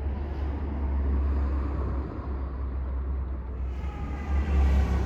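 Low, steady rumble of a boat's engines as it manoeuvres out of the harbour.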